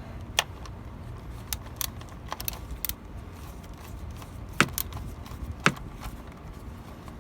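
Irregular sharp metallic clicks and clinks of a hand ratchet and socket as bolts are snugged down in the engine bay, over a low steady hum.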